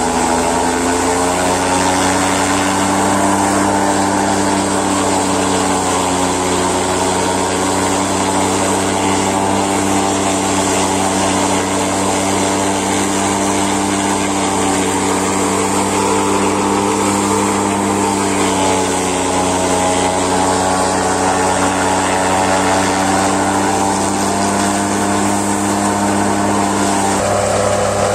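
Massey Ferguson tractor's diesel engine running steadily under load, driving a forage chopper that shreds napier grass and blows it out of the spout. The engine pitch shifts slightly now and then over a constant chopping and blowing noise.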